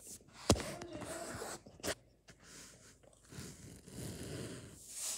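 A hand rubbing and scratching through a small dog's fur and fleece blanket close to the microphone: scratchy rustling in two spells, with a sharp knock about half a second in and a smaller one near two seconds.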